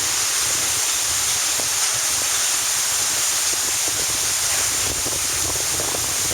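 Heavy rain pouring down hard and steadily, with wind rumbling on the microphone.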